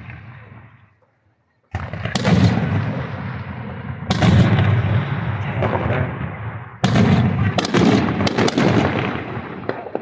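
Fireworks shells bursting: a loud boom a couple of seconds in, another about four seconds in and another near seven seconds, each followed by a long rumbling tail, with sharp crackles near the end.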